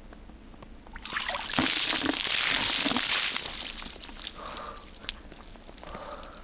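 Ice-cold water poured over a person in a cold outdoor shower, one splashing gush that starts about a second in and lasts about two and a half seconds before tailing off.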